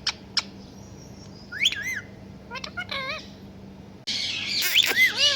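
Pet parrot calling. It starts with a couple of sharp clicks, then gives short whistled chirps that rise and fall, and about four seconds in breaks into a louder, busier run of warbling squawks and whistles.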